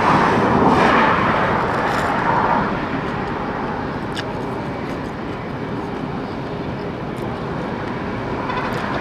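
Steady car noise, a low hum and hiss, somewhat louder in the first couple of seconds, with a few faint clicks.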